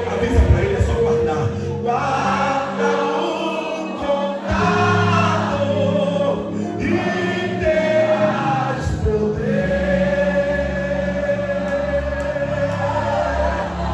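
Gospel worship music: voices singing together over sustained instrumental accompaniment with a low bass.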